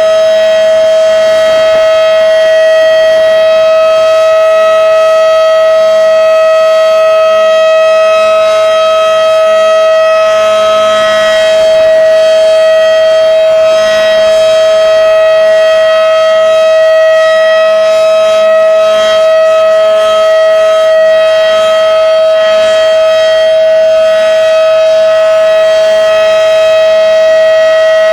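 Federal Signal Model 5/7 outdoor warning siren sounding its steady alert signal during a test: one loud, unbroken tone held at a constant pitch.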